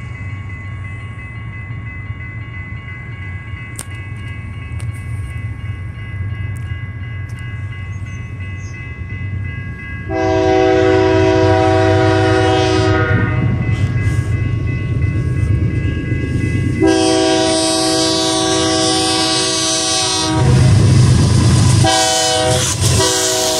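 Diesel locomotives of an approaching BNSF freight train rumbling, then the lead locomotive's multi-chime air horn sounding two long blasts and a short one, the opening of the long-long-short-long grade-crossing signal. The engines rumble louder as the locomotives pass close near the end.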